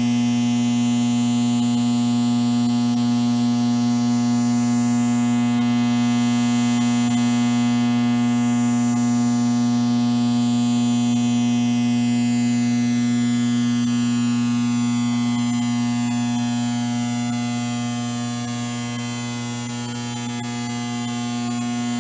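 Steady electrical hum and buzz: a strong low drone with a thin, slowly shifting shimmer on top, dipping a little in loudness near the end.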